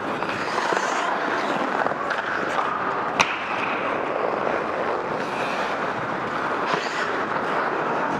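Ice hockey skates scraping and gliding on rink ice, a continuous rushing noise with small scuffs and ticks. About three seconds in there is a single sharp click, a hard impact on the ice.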